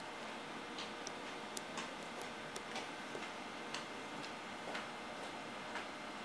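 Light, irregular clicks of a stylus pen tapping on clear plastic tiles laid on a flat display, about one a second, over a steady hiss.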